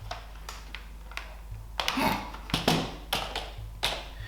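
Keys of a Logitech computer keyboard being typed and tapped in irregular clicks, a test that the keyboard still works after having liquid spilled on it. A steady low hum runs underneath.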